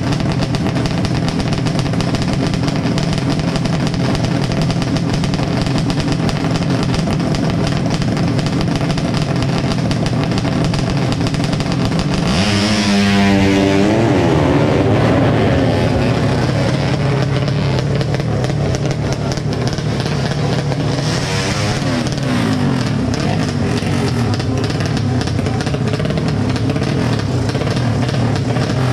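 Four-stroke underbone drag bike with a horizontal engine (up to 200cc) idling and revving at the start line, then launching about twelve seconds in, its revs climbing in quick steps through the gears as it pulls away and fades. Another run of rising revs comes about twenty-one seconds in.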